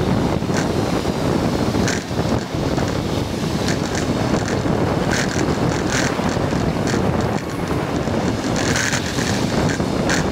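Wind buffeting a camera microphone on a moving vehicle, over a steady rumble of road and traffic noise, with short hissing ticks every second or two.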